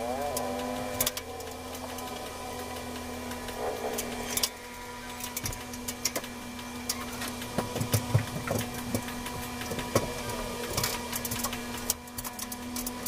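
Sped-up handling noise of plastic wire molding being pressed up onto a ceiling edge: rapid scattered clicks and knocks over a steady hum.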